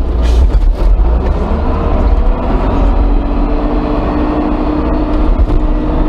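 Front loader's diesel engine running under load, heard from the operator's cab as the machine drives, with a deep steady rumble; a steady higher note joins about two seconds in.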